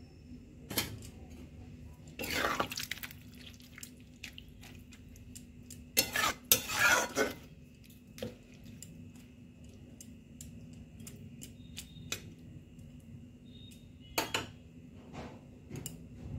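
Metal spatula scraping and knocking against a metal kadai while stirring vegetables in a watery gravy. It comes in several short bursts of clatter, the loudest about two seconds and six to seven seconds in, with light clicks in between.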